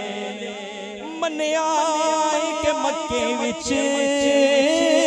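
Unaccompanied male voices singing a Punjabi naat: a low note held steady under a lead voice that sings a long, wavering melodic line.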